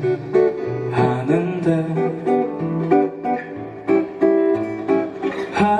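Acoustic guitar playing chords and plucked notes as song accompaniment, with a voice singing a short phrase about two seconds in.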